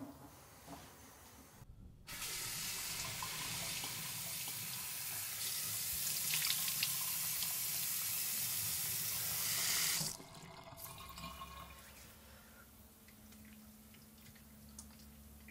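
Bathroom sink tap running in a steady stream, turned on about two seconds in and shut off suddenly about ten seconds in.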